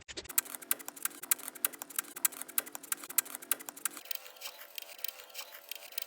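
Rapid, evenly spaced clicks, several a second, over a buzzy held tone that shifts higher about four seconds in: a mix built from chopped-up door-slam samples.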